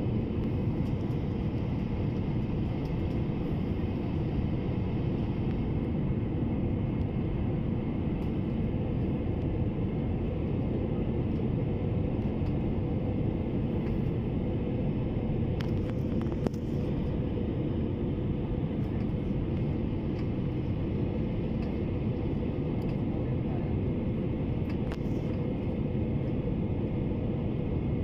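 Steady cabin noise of a jet airliner on final approach: the engines and rushing airflow heard inside the cabin as an even low rumble, with one brief click about midway.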